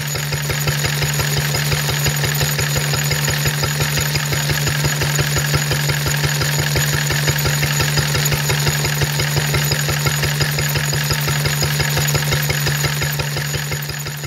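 1939 Lister D single-cylinder four-stroke stationary engine running steadily under load, belt-driving a Lister Bros. blower, with a fast, even beat of firing strokes over a steady low hum. It fades in at the start and fades out near the end.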